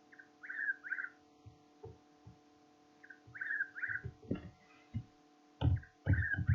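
Background music with short plucked guitar-like notes in little groups of three, over a few held low tones and soft low pulses.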